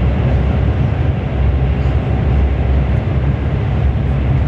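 Steady low rumble and rushing noise inside the passenger cabin of a CRH1A high-speed train running at about 180 km/h.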